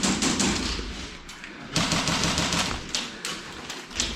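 Airsoft guns firing on full auto in two rapid bursts of fast clicking shots, the second starting just under two seconds in and lasting over a second.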